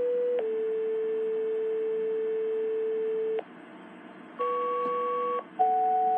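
Motorola HT1000 handheld radio's speaker sounding a paging alert over a steady hiss: a short tone drops to a lower tone held for about three seconds, the pattern of a two-tone sequential page. About a second later come two one-second beeps, each with two pitches at once, the second beep lower than the first.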